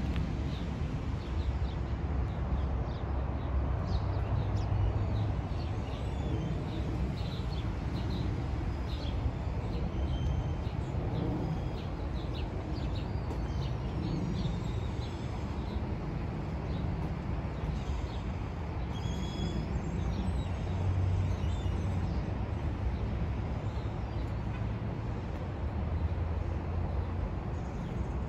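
Birds chirping briefly here and there over a steady low outdoor rumble that swells now and then.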